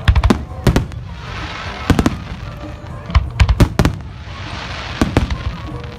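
Aerial fireworks bursting: a run of sharp bangs, several in quick succession a little past halfway, with crackling hiss from the shells in between.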